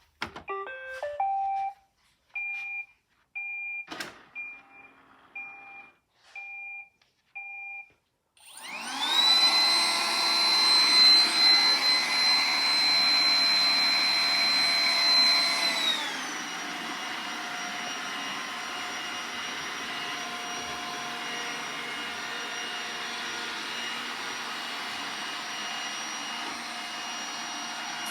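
Roomba 980 robot vacuum starting up: a quick rising run of electronic tones and about six short two-tone beeps, then its vacuum motor spins up with a rising whine. It runs loud for about seven seconds, then drops to a lower, steady speed and keeps running.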